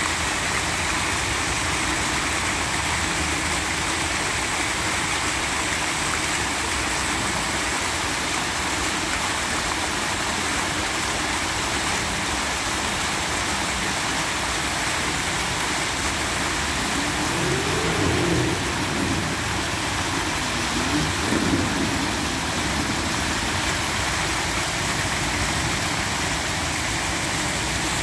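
Fountain jets and a tiered fountain splashing steadily into a basin: a continuous hiss of falling water with a low rumble underneath. Two brief wavering tones stand out a little past the middle.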